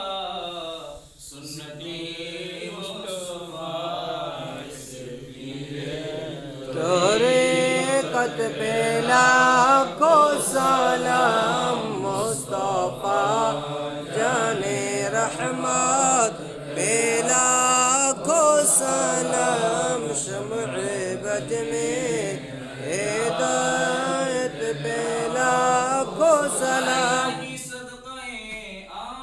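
Men's voices chanting a melodic Islamic devotional recitation (milad, in praise of the Prophet). The chant grows louder about seven seconds in and drops away near the end.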